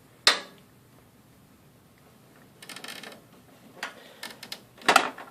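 Plastic clicks and rattles from a SATA power cable and its connector being handled and plugged into a hard drive inside a computer case. There is a sharp click just after the start, a short rattle about three seconds in, a few light ticks, and the loudest click near the end.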